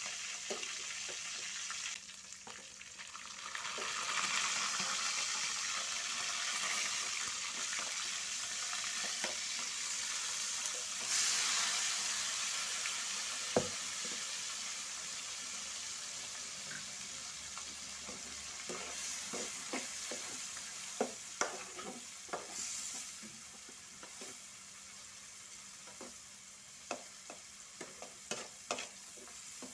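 Hot oil sizzling in an aluminium wok as ground chilli paste for sambal is fried and stirred with a metal slotted spatula. The sizzle swells about eleven seconds in as the paste goes into the oil, with a sharp knock of the spatula on the wok a couple of seconds later and short scraping taps of the spatula in the later part.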